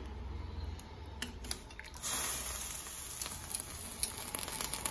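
Metal tongs stirring and shifting parboiled beef and liver in a pan of hot, murky water, with a few small clicks over a steady hiss that gets louder about two seconds in.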